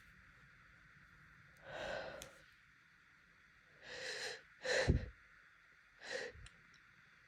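A person's short, noisy gasping breaths and snorts through the nose as an allergy sneeze builds up but does not come: four bursts, the loudest about halfway through.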